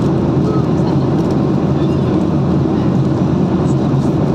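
Steady low rumble of vehicle cabin noise, even and unbroken.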